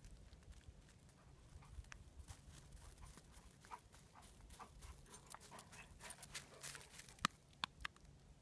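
Faint footfalls crunching and pattering on crusted snow, coming more often and louder toward the end, with one sharp click about seven seconds in.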